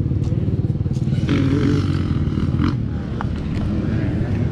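Yamaha YZ450F single-cylinder four-stroke motocross engine running, its pitch rising and falling with the throttle about a second and a half in.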